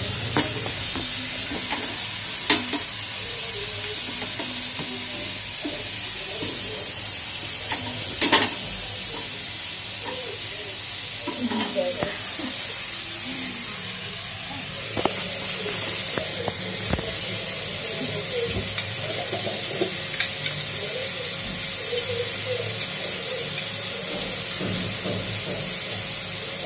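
Vegetables sizzling in a steel kadai (wok) on a gas stove, with a steady frying hiss, while a metal spatula stirs and scrapes the pan. There are a few sharp metal clanks, the loudest two early on.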